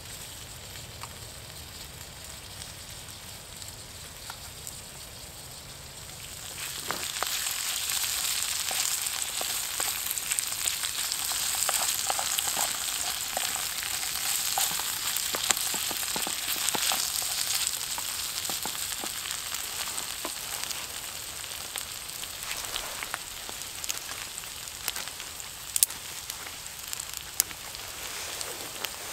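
Sliced vegetables frying in a steel pan over a small wood-burning camp stove. The sizzle starts suddenly about seven seconds in, is loudest for the next ten seconds or so, and then slowly dies down. Sharp clicks of a wooden spoon stirring the pan are scattered through it.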